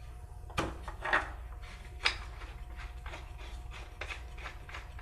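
Handling of poplar bench parts and long bolts: three light knocks in the first two seconds, then a run of faint small clicks as bolts are started by hand.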